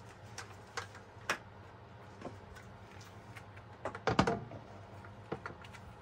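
Scattered light clicks and taps, then a louder cluster of knocks about four seconds in, as a 30-watt UV flood light is handled and set down on a clear perspex lid.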